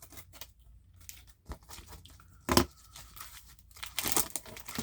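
A package being opened by hand: packaging crinkling and tearing in scattered rustles, with a sharp knock about two and a half seconds in and a louder burst of rustling near the end.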